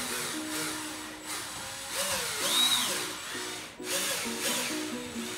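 Cordless drill-driver running in short bursts as it drives the mounting screws through a built-in oven's side frame into the cabinet, over background music.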